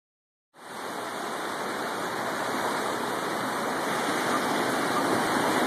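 A river near flood stage: swollen, fast floodwater rushing in a steady noise that starts about half a second in and slowly grows louder.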